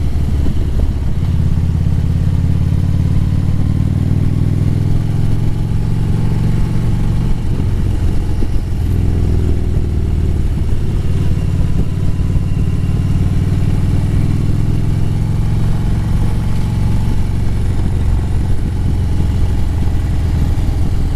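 Harley-Davidson Road Glide's V-twin engine running under way on a winding road, its low, steady note falling away and picking up again about eight to nine seconds in.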